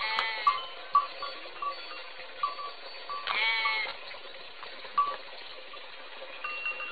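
Goat bleating twice, each call about half a second long, the first right at the start and the second about three seconds in, over short tones that repeat at uneven intervals.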